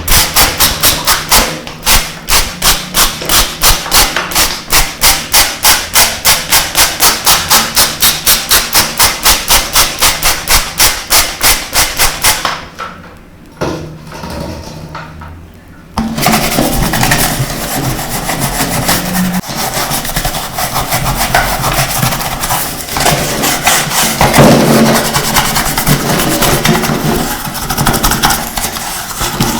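Rubbing strokes on a dirty toy car, even and rhythmic at about three a second, stopping about twelve seconds in. After a short quieter stretch comes faster, continuous rasping scrubbing.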